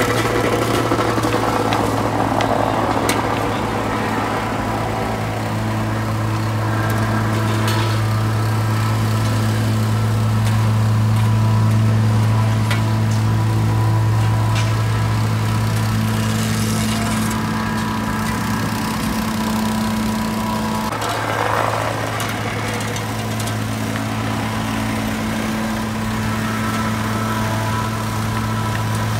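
Asphalt paver's diesel engine running steadily with a constant low hum, with scattered scrapes and clicks from asphalt rakes working the fresh mix.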